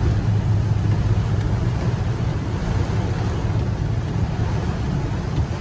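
Inside a car driving in heavy rain: a steady low drone of engine and tyres on the wet road, under an even hiss of rain on the car.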